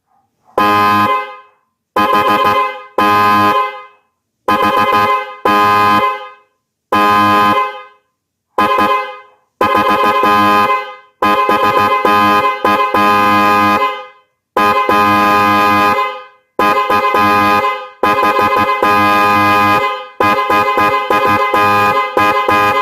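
Maruco Model 5 car horn sounding in a loud series of blasts: about ten short honks of roughly a second each with gaps between, then longer blasts held for two to three seconds, and a run of quick short toots near the end.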